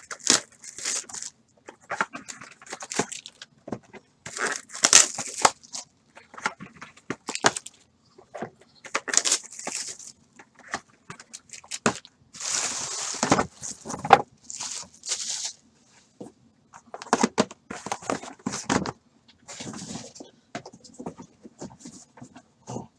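Foil wrappers of trading-card packs crinkling and tearing by hand in irregular bursts of crackly rustle.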